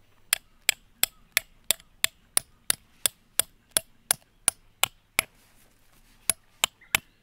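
Steel-headed hammer striking a thin steel tent peg, driving it into grassy ground: a steady run of sharp metallic strikes, about three a second. After a pause of about a second, three more strikes follow.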